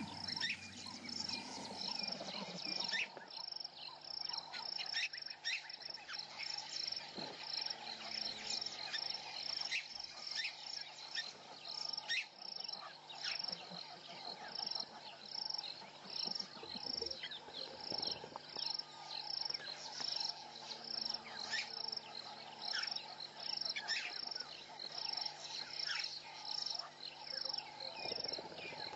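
Evening bush chorus of insects, with a high chirp pulsing steadily a little faster than once a second and scattered short sharp chirps over a soft background hum.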